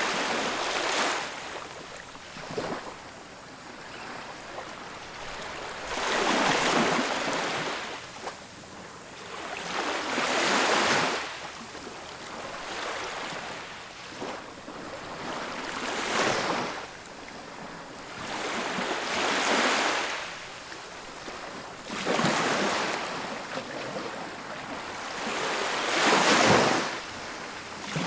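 Ocean surf on a beach: waves break and wash up in surges every few seconds, over a steady wash of water noise.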